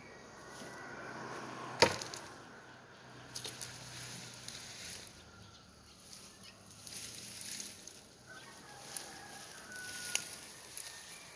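Chopping at bamboo: one loud, sharp chop about two seconds in, then a few fainter knocks and rustling of cut brush.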